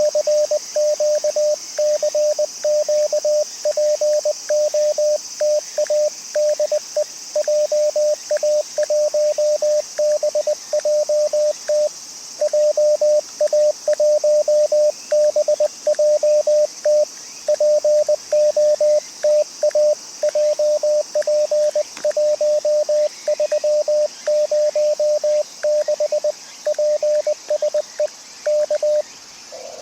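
Morse code (CW) from an amateur radio transceiver: a single steady tone keyed on and off in dots and dashes, running almost without a break, with only short gaps between groups.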